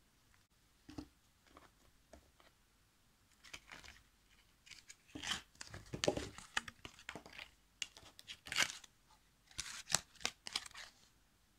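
Toy packaging of paper and foil being torn open and rustled by hand, in irregular crinkly bursts that are loudest from the middle on, with a few light clicks of handling at first.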